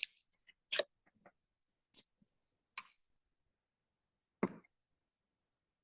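A handful of short, sharp clicks and knocks, five in all, spaced irregularly with silence between them.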